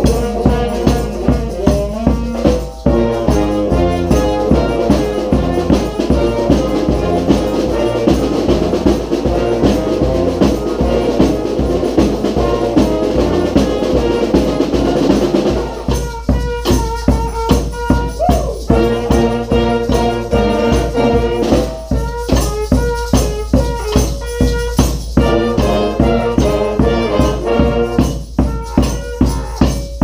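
A street brass band playing a rock-style tune: saxophones, sousaphone, trumpets and trombones over a steady snare drum beat. The arrangement changes about halfway through, with the drum strokes standing out more.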